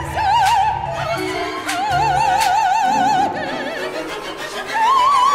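An operatic soprano sings long held notes with wide vibrato over low orchestral accompaniment, and climbs to a higher sustained note near the end.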